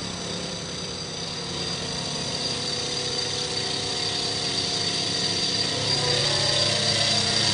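CNC milling machine running a cut across the surface of a wheel rim: a steady machine sound with a high whine and lower hum, slowly growing louder.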